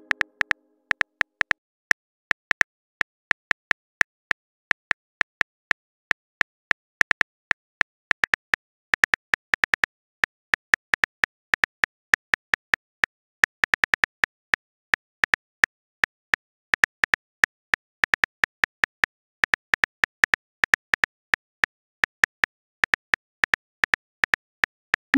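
Phone keyboard key clicks as a text message is typed: quick, irregular taps several a second with short pauses between runs. At the very end a rising swoosh sounds as the message is sent.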